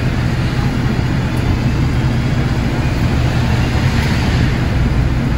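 A bus's engine idling steadily at a stop, a continuous low hum with the doors open.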